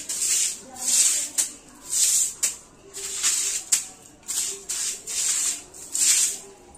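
Short hand broom with brown bristles swept in quick strokes across a tiled floor: a dry swish about twice a second, with sharp flicks of the bristles at the ends of some strokes.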